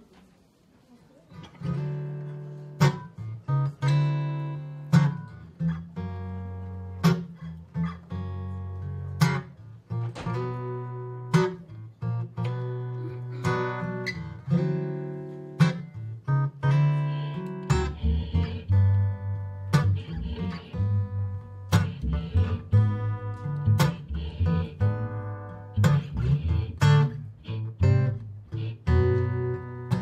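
Acoustic guitar (an Eastman) playing a slow blues intro of picked and strummed chords, starting about a second and a half in. A deeper washtub bass line joins about halfway through.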